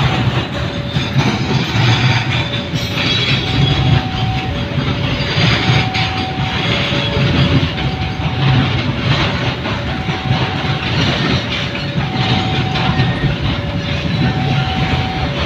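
Container freight train rolling past, its wagon wheels clattering and rumbling over the rails. Over it, a level crossing's warning alarm sounds a regular alternating two-note tone.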